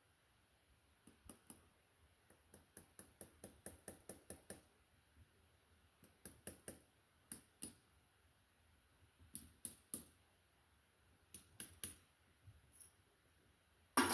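A series of short, sharp clicks and light knocks in irregular clusters, including a quick run of about five a second.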